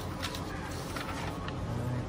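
Sheets of printed paper being handled and shuffled, with a few short crackles of paper over a steady low hum of room ambience.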